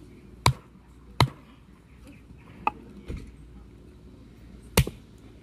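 Hatchet splitting kindling, its blade stuck in a block of wood that is banged down onto a wooden chopping block to drive the split. Three sharp wooden knocks, two close together near the start and one near the end, with softer knocks between.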